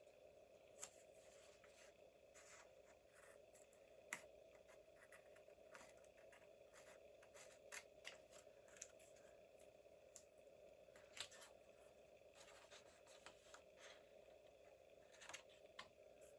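Quiet crafting at a desk: faint, scattered snips and light taps from scissors and paper or washi strips being handled, over a low steady hum.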